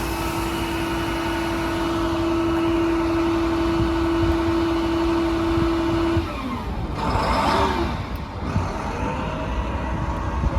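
International Durastar service truck's diesel engine running, with a steady whine that cuts off about six seconds in, followed a second later by a brief rush of noise.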